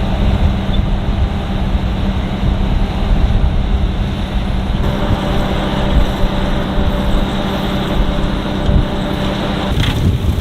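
Heavy diesel farm machinery running steadily under load, a continuous engine hum and mechanical rumble whose tone shifts about halfway through.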